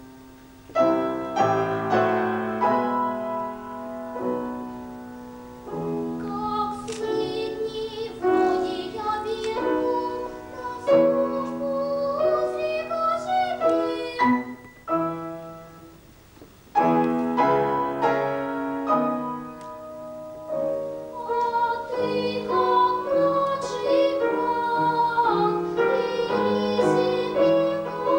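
Piano accompanying a child singing a solo opera part. The piano plays alone at first and the voice comes in about six seconds in. There is a short break in the music around the middle.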